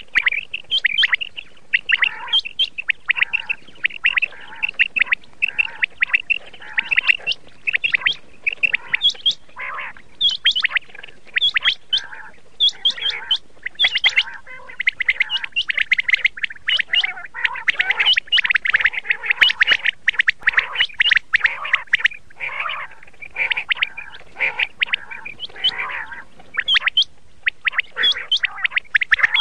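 Quail calling: a dense, unbroken run of short chirping notes, many of them overlapping.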